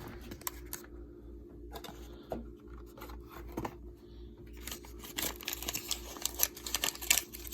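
A sealed pudding-mix packet being torn open by hand: a few scattered crinkles at first, then a dense run of tearing and crinkling in the last couple of seconds. A steady low hum runs underneath.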